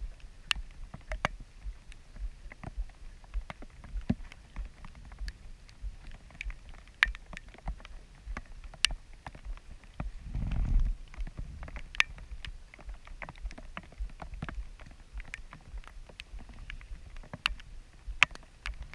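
Raindrops ticking irregularly on the camera housing of a small sailboat under sail, over a low rumble of wind and water. A louder low rush swells up about ten seconds in.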